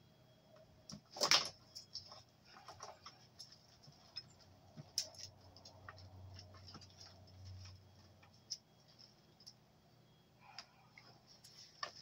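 Hands working a car wiring harness and its wrapping tape: scattered light clicks and rustles of wires and plastic connectors, with one louder scraping rustle a little over a second in.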